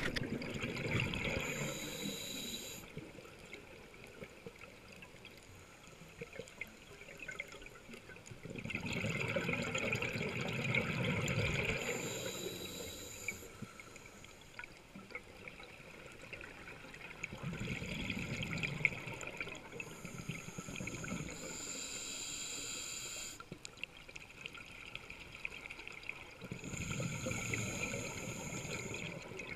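Scuba regulator breathing heard underwater: four bursts of exhaled bubbles, roughly every eight or nine seconds, alternating with a thin hiss as each breath is drawn in.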